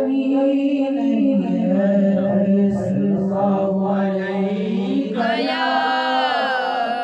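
A man's voice chanting an Islamic devotional chant in long, wavering held notes. About five seconds in, the line climbs higher and grows brighter.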